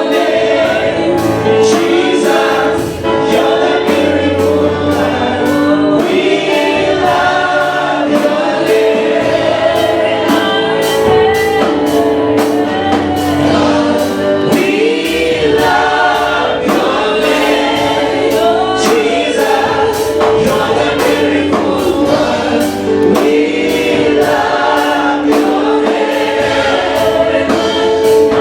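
Congregation singing a gospel worship song as a choir, over instrumental accompaniment with a steady beat.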